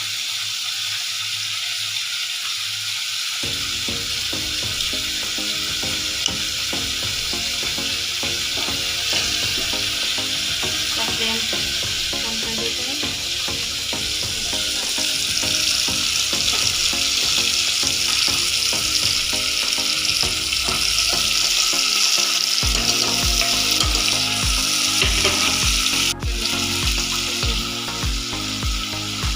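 Chicken frying in hot oil in an open pressure cooker pot, sizzling steadily as it is stirred. The sizzle grows louder about halfway through, with a brief break near the end.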